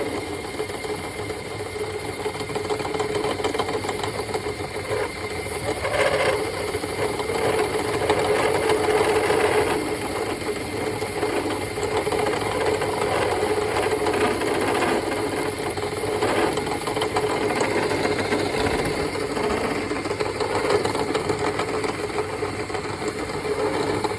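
Lathe running steadily with a constant hum while a tool cuts a car subframe bushing, with a few short louder scrapes. Little material is coming off: the lathe is not cutting the bushing well.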